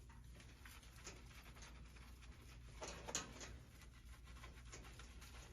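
Near silence: faint scattered taps and rustling, with one brief louder rush of noise about three seconds in.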